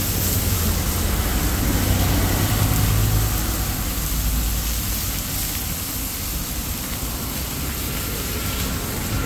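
Whole masala-coated fish sizzling on a large smoking iron griddle, under a steady low rumble of passing road traffic that is strongest in the first few seconds and then eases.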